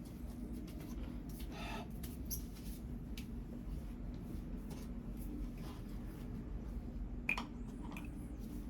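Close-miked eating sounds: small mouth clicks and soft smacks over a steady low hum, with a short squeak about two seconds in and a sharp click about seven seconds in.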